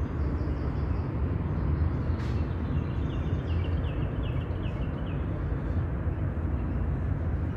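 Steady low outdoor background rumble, with a short run of faint high chirps from about three to five seconds in.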